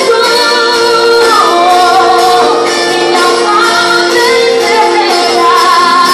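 A woman singing a worship song live, with a band holding sustained chords underneath her melody.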